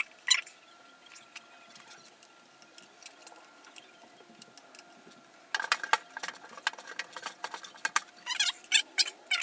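Hard drives and drive-cage parts being handled in a PC case: quick clicks, taps and scrapes of plastic and metal. There is a burst right at the start, then a quiet stretch with only scattered ticks, and the handling picks up busily again about halfway through.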